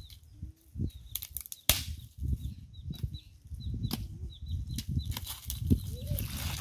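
Dry sticks and leaves rustling and knocking as firewood is picked from a pile, with several sharp cracks of sticks snapping or striking each other. A small bird chirps repeatedly in the background.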